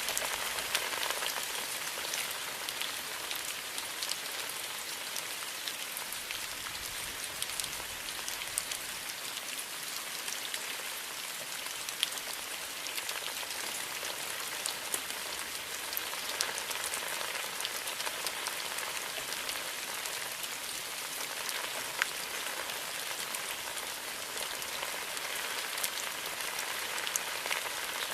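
Steady rain falling: a dense, even hiss with countless small drops ticking through it and a few sharper drops standing out.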